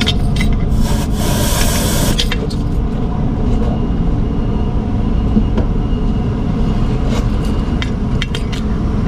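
Semi truck's diesel engine idling with a steady low rumble, a short hiss a second or so in, and a few light clicks and taps.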